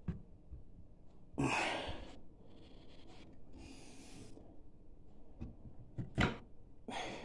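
Close-up handling noise as a wooden chair frame is turned over by hand: a few breathy hissing puffs, the loudest about one and a half seconds in, and a sharp wooden knock about six seconds in.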